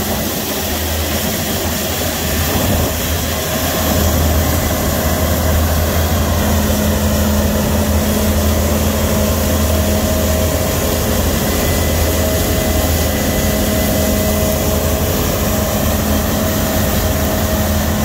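Claas Lexion 5500 combine harvester running under load while cutting tic beans: a steady low engine drone with a few constant tones above it and a hiss of crop and machinery noise.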